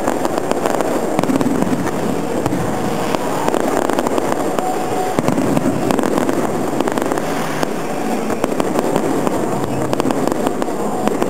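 Aerial fireworks bursting in rapid succession: a dense, unbroken crackle of many small reports.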